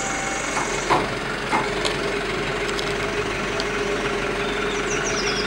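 Aerial-platform (skylift) truck running with a steady hum and noise while its hydraulic boom raises the basket. There are a few light clicks, and a bird chirps near the end.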